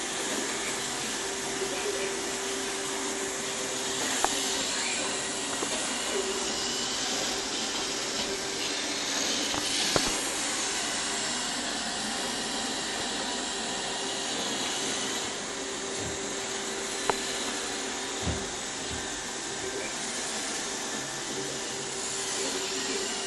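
iRobot Roomba 770 robot vacuum running: a steady whirring hiss with a constant hum. It is broken by a few sharp knocks about four, ten and seventeen seconds in.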